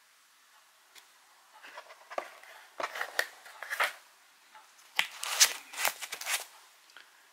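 Cardboard firework selection box being opened and handled: irregular scrapes, rustles and knocks of the cardboard lid and packed fireworks, in two bursts of activity.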